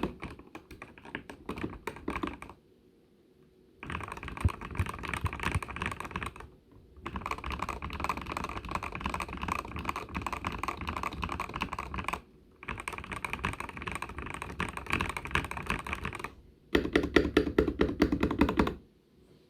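Epomaker TH80 mechanical keyboard with Gateron Pro Black linear switches being typed on fast, in runs of rapid keystrokes broken by short pauses. The last run, near the end, is louder and deeper, a quick burst of strikes.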